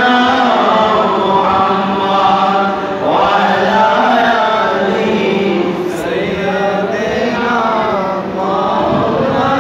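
A man's voice chanting a devotional recitation in long, slowly bending melodic notes into a microphone.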